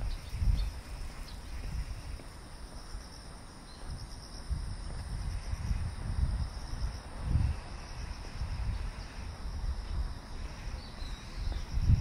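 Insects chirping steadily, a high trill that pulses rapidly, with a fainter thin high tone above it. Low rumbling bumps come every second or two, the strongest about seven seconds in.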